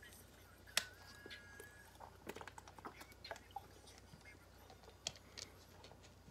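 Near silence with faint, scattered clicks and taps. A sharper click comes about a second in, followed by a brief thin steady tone.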